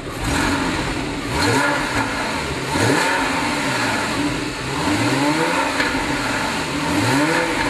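Porsche 997.2 Carrera 4 GTS 3.8-litre flat-six, fitted with a Fabspeed X-pipe primary muffler bypass and factory PSE mufflers with the sport button off, blipped from idle about five times. Each blip rises and falls in pitch.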